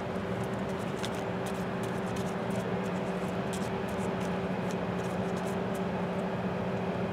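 A steady mechanical hum holding a low tone, with scattered faint light ticks, mostly in the first few seconds.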